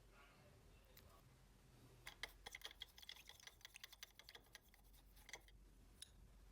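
Faint, irregular small clicks and taps, clustered over about three seconds, from watchmaker's tools handling the parts of a mechanical watch movement during disassembly.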